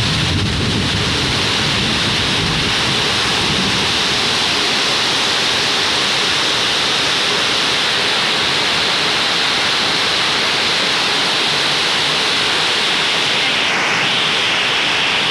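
Rain pouring down in a loud, steady, unbroken hiss.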